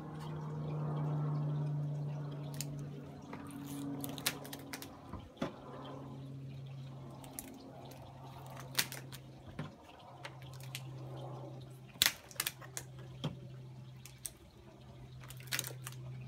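Rubber bands being stretched over a watermelon and snapped into place one after another, giving sharp, irregular clicks. The melon is already bound with over 200 bands and squeezing under the tension. A steady low hum runs underneath.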